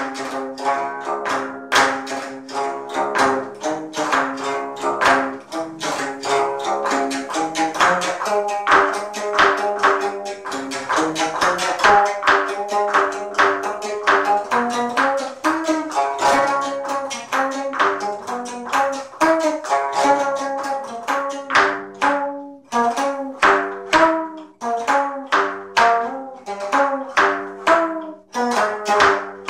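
Solo geomungo, the Korean six-string zither, played with a bamboo stick. Each stroke sounds as a plucked note with a sharp tap of the stick, in a steady run of notes over a low string that rings underneath.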